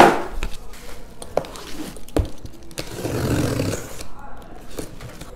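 Packaging being handled on a table: a sharp knock at the start, a few light taps and a dull thud, then a second or so of scraping and rustling as the cardboard shipping box is moved among bubble-wrap packages.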